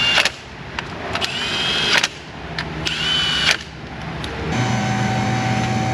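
Cordless ratchet run in three short bursts, its motor whining up to speed and cutting off each time. About four and a half seconds in, a steady low hum starts and keeps going.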